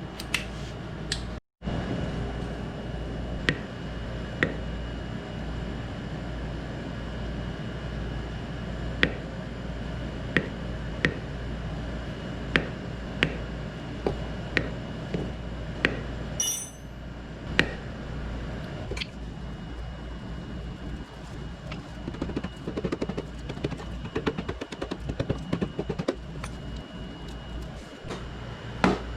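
Hand tools working the 8 mm bolts of a motorcycle clutch cover: scattered light metallic clicks and clinks over a steady low hum, with a quicker run of louder knocks near the end.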